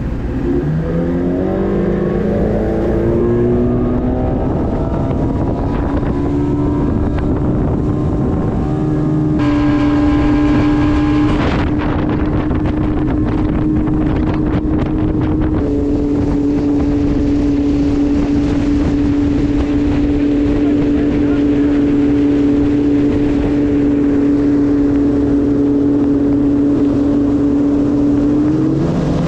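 Chrysler 100 hp two-stroke outboard motor on a bass boat revving up, its pitch rising over the first few seconds as the boat speeds up. It then holds a steady high pitch at running speed, with a few small shifts in pitch, over the rush of water and wind.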